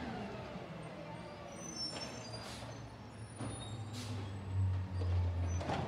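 Natural-gas automated side-loader garbage truck's engine running, growing louder about four and a half seconds in as its hydraulic lift arm reaches out for a bin. A few brief sharp sounds come over the engine hum.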